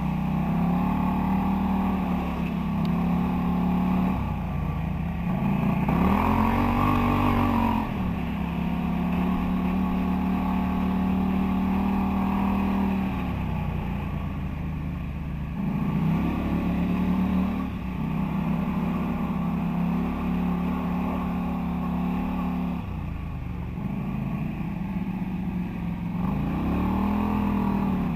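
Polaris quad (ATV) engine running while riding, heard close up from the machine itself. It revs up and eases off in three surges, about a quarter of the way in, around the middle and near the end, and holds a steady note between them.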